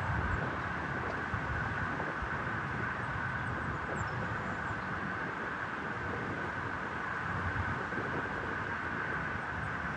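Steady airplane noise during landing: a constant rushing sound with low rumble and a steady higher hiss, holding level without rising or falling.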